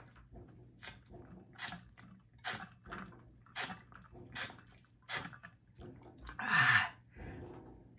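A person drinking water in a steady run of gulps, about one swallow a second, then a loud breathy exhale near the end.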